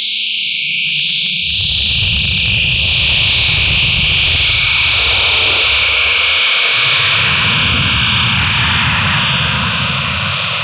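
Experimental electronic sound synthesized from a drawing by Coagula image-to-sound software: a loud, dense band of high, hissing tone held steady, under which a low rumble swells in, drops out briefly about six seconds in, and swells again.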